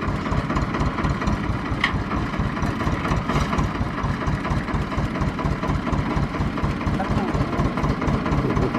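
Tractor's diesel engine idling steadily with an even, low pulsing beat.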